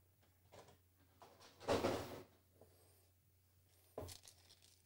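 Quiet handling of a boxed action figure and its plastic packaging: one short rustle about two seconds in and a small click near the end.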